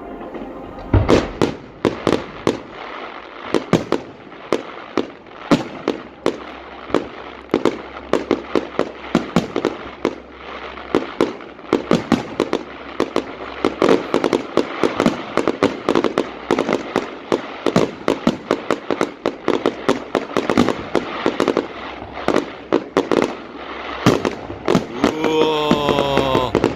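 Fireworks display going off: a dense, continuous crackling and popping of many small bursts, with louder bangs scattered throughout.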